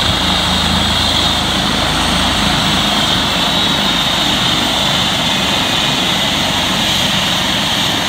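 Eurocopter EC135 helicopter running on the ground after landing: a steady high turbine whine over the low beat of the turning main rotor, the beat weakening a couple of seconds in.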